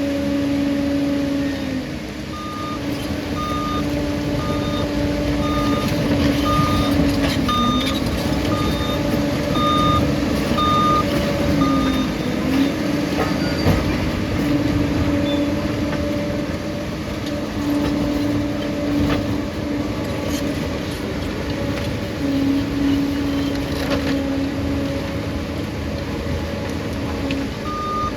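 Liebherr crawler bulldozer's diesel engine running under load, its pitch dipping and rising as the machine works. A reversing alarm beeps steadily from about two seconds in until about eleven seconds, then again near the end.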